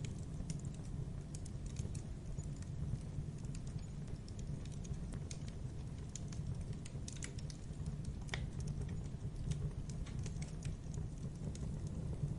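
Fire crackling: a steady low rumble with irregular sharp snaps and pops, one louder pop about eight seconds in.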